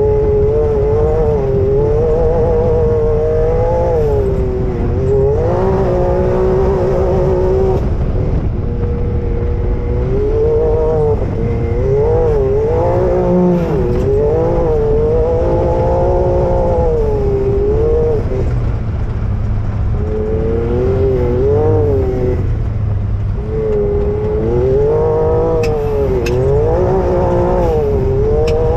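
Off-road vehicle engine revving up and down as it is driven across sand dunes, its pitch rising and falling continually and easing off briefly a couple of times. Heavy wind rumble on the microphone lies underneath.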